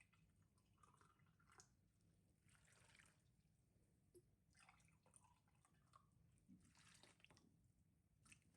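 Near silence with faint, scattered small clicks and brief rustles.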